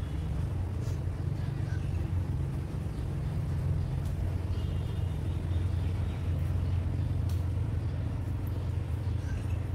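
Steady low rumble, like a running engine or traffic, with a few faint sharp snips of hair-cutting scissors.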